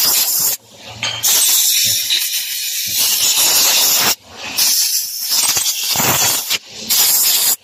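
Compressed-air blow gun hissing in four bursts, blowing sand and dirt off wiring connectors. Each burst starts and stops abruptly, the longest lasting about three seconds.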